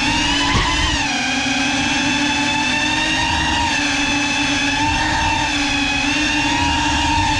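GEPRC Cinelog 35 cinewhoop drone in flight, its motors and ducted propellers whining steadily. The pitch rises briefly about half a second in with a throttle change, then holds steady.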